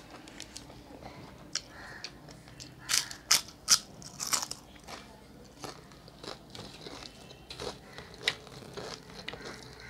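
A person chewing a mouthful of rice eaten by hand, mixed with crisp fried potato chips, close to the microphone. Several loud crunches come about three to four and a half seconds in, with lighter chewing clicks before and after.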